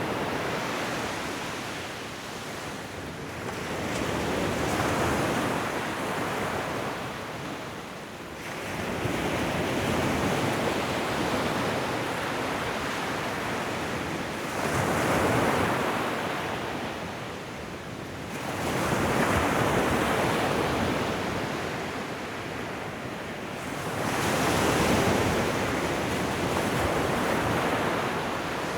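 Ocean waves breaking and washing up a shoreline, each surge swelling and fading about every five seconds.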